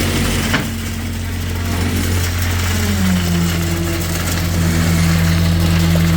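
Heavy engine of the concrete pour equipment (a pump or mixer truck) running steadily, its pitch dropping slightly about three seconds in.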